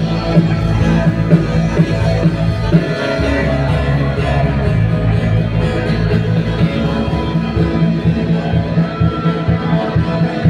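Loud worship music with guitar over a pulsing bass.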